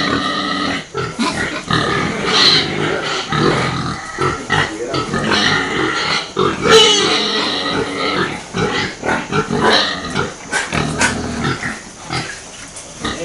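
Several domestic pigs grunting and calling, many loud overlapping calls with no pause.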